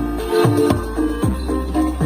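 Electronic dance remix music: a kick drum that drops sharply in pitch, struck several times, over deep sustained bass and a repeating melodic line.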